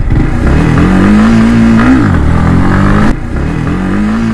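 Yamaha MT-15's 155 cc single-cylinder engine revving up hard, holding high revs, then dropping off as the throttle closes, twice, with a sudden cut between the two, during a wheelie attempt.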